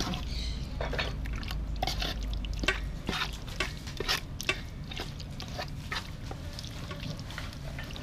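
A spoon stirring a thick hor mok mixture of curry paste, coconut milk and fish pieces in a large aluminium pot: wet squelching, with irregular clicks and scrapes as the spoon knocks against the metal.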